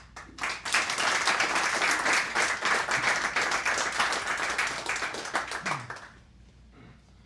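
A room full of people applauding for about five seconds, then dying away.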